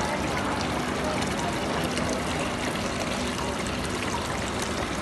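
Small decorative rock-style tabletop fountain: a thin sheet of water spilling from a spout and splashing steadily into the basin below.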